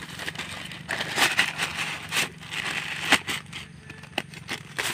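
A plastic courier mailer bag being torn and crinkled open by hand, with irregular crackling rustles as the box inside is worked out.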